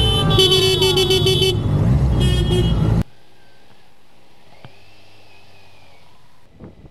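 Motorcycle engines running amid parade traffic, with two horn blasts: a longer one about half a second in and a shorter one a little over two seconds in. The loud noise cuts off suddenly about three seconds in, leaving a much quieter steady background.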